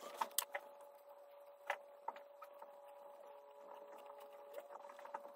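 A fountain pen nib scratching and ticking on drawing paper in short, quick strokes as small outlined shapes are drawn, with a few sharp taps in the first second and one more near the middle. A faint steady hum lies underneath.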